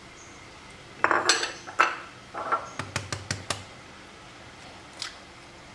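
Kitchenware clinking against ceramic dishes: a cluster of knocks and scrapes, then about five quick sharp clicks, and one faint click near the end.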